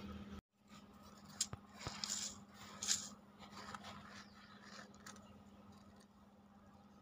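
A hand digging and scraping through coarse dark grit in a black plastic bucket: a series of short scratchy crunches starting about half a second in, loudest over the next few seconds, then fainter.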